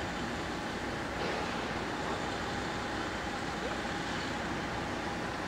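DD51 diesel-hydraulic locomotive's engines running steadily as it approaches slowly, hauling a train of oil tank wagons, with a steady whine over the engine noise.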